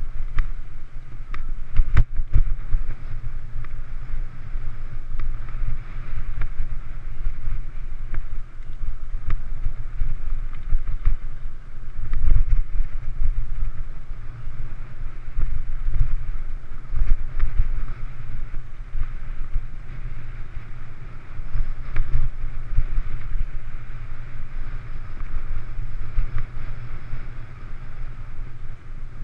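Wind buffeting a GoPro's microphone on a mountain bike ridden along dirt singletrack, a low rumble that swells and fades, with sharp knocks and rattles of the bike and camera over trail bumps.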